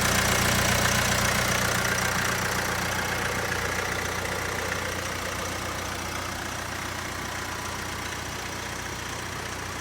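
Vauxhall Mokka X 1.4 turbo petrol engine idling steadily with the A/C on and the newly replaced scroll-type A/C compressor running, heard in the engine bay. The hum slowly gets quieter.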